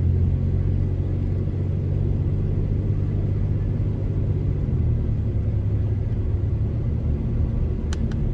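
Steady low rumble of a pickup truck's engine and road noise, heard from inside the cab while driving, with two short sharp clicks near the end.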